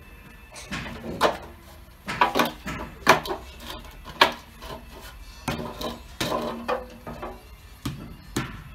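Irregular knocks and clinks of a mason's trowel and metal straightedge against pumice-concrete blocks, about a dozen, some ringing briefly, as the first course is tapped into line against the straightedge.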